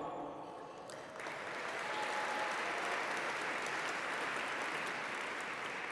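Audience applauding: clapping that swells from about a second in and then holds steady.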